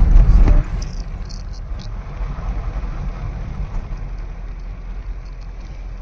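Low, steady rumble of a vehicle on the move. It is loud for the first half-second, then drops sharply and goes on more quietly.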